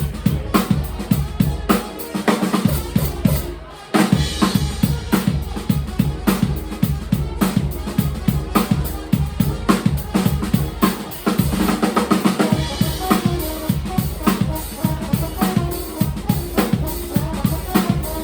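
Live band music with a driving drum kit and bass guitar playing an uptempo beat. The bass and kick drum drop out about two seconds in, and the full band comes back in hard about four seconds in.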